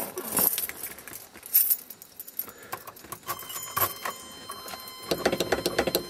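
A bunch of keys jangling and clicking as they are handled while the car key is sought. About halfway in, a thin steady high tone comes in under the jingling.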